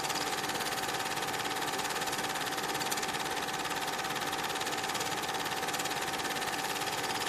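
Cine film projector running: a steady, fast mechanical clatter with a constant tone running through it.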